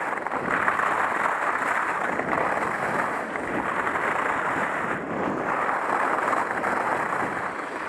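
Steady rushing noise of skiing downhill: wind on the helmet-camera microphone mixed with skis sliding over firm groomed snow.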